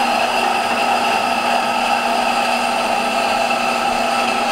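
A steady machine drone with several held tones over a noisy hiss, unchanging throughout.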